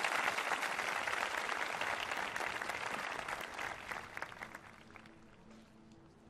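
A large crowd applauding, the clapping dying away about four to five seconds in. Faint steady music tones come in near the end.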